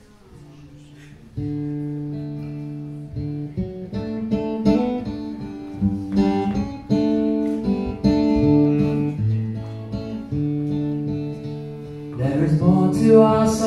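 Solo acoustic guitar introduction in waltz time, starting about a second and a half in, with ringing chords that change every second or so. A man's singing voice comes in near the end.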